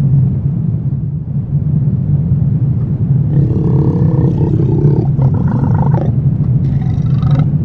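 Horror ambience sound effect: a steady low rumbling drone, with a deep creature growl coming in about three seconds in and lasting around four seconds.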